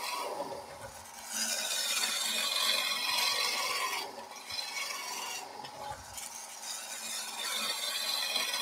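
Turning tool cutting a spinning wooden spindle on a wood lathe: a steady hiss of shavings peeling off, in passes, with short breaks where the tool comes off the wood about a second in and again around the middle.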